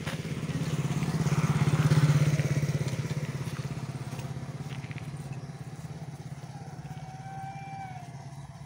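Motor vehicle engine passing on the road, growing louder to a peak about two seconds in, then slowly fading away.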